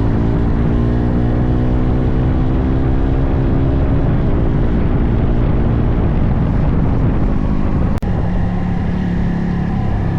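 Motorcycle engine running while riding, its note slowly falling as it eases off over the first several seconds, with a constant rush of wind and road noise. About eight seconds in the sound breaks off sharply for an instant and resumes with a steadier engine note.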